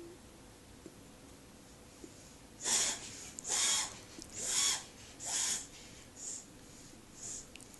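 A pet coughing: a run of six hissy hacks about one a second, starting a little under three seconds in, the last two fainter.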